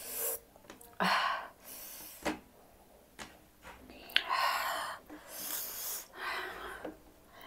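A person's breathing: about six short, breathy gasps and sniffs, each about half a second long, with two sharp mouth clicks in between, typical of eating very spicy food.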